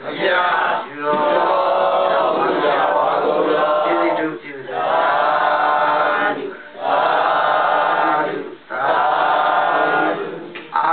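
Buddhist chanting led by a monk's voice through a microphone, sung in long held phrases broken by short pauses for breath about every two seconds.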